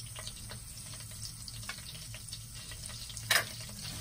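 Whole spices (star anise, cinnamon stick and cumin seeds) starting to fry in hot oil in a wok: a light sizzle with scattered small crackles, and one sharper click about three seconds in.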